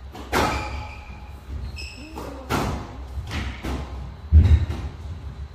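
Squash rally: sharp strikes of the ball off rackets and the court walls every second or so, with squash shoes squeaking on the court floor about two seconds in and a heavier thud a little after four seconds.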